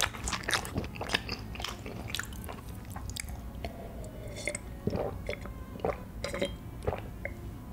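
Close-miked chewing of tteokbokki rice cakes in sauce, with wet mouth clicks and smacks. Partway through come several swallowing gulps from a glass of drink.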